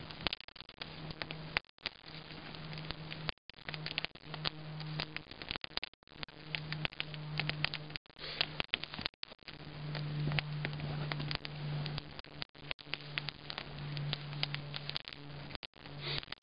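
Small kindling fire of split pine and damp fir sticks burning, with many sharp irregular crackles and pops. A low steady buzz comes and goes throughout.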